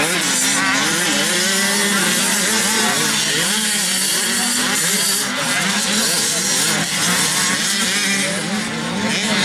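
Motocross bikes' engines revving up and down as they ride the dirt track, more than one at once, over a steady drone.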